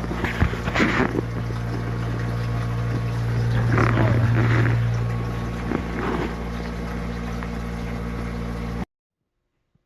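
Steady hum of the boat's small electric freshwater pump running while the tap is open, with water running and a few light knocks and clicks; it cuts off suddenly near the end.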